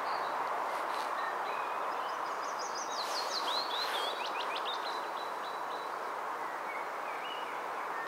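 Male pied flycatcher singing one short, quick phrase of high sweeping and falling notes a couple of seconds in, followed by a few soft call notes near the end, over a steady background hiss.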